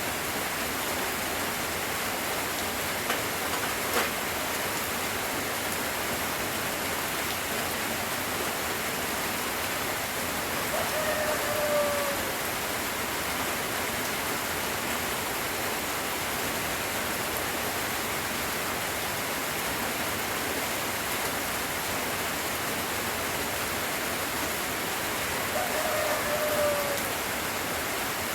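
Steady hiss of light rain falling. Twice, a short pitched call about a second long, falling slightly, rises above it, and there is one faint click early in.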